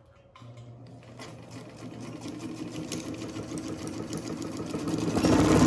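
Vintage Modern Home all-metal Japanese sewing machine starting up about half a second in and running with a rapid, even clatter that speeds up and grows louder, reaching full speed near the end. The machine is freshly oiled and fitted with a new belt.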